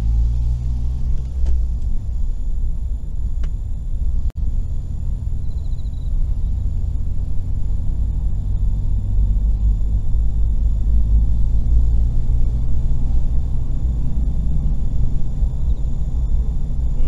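Steady low rumble of a car's engine and tyres heard from inside the cabin while driving, with a momentary dropout about four seconds in.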